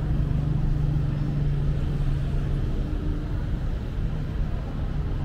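Street traffic: a car engine running close by with a steady low hum, which fades about halfway through.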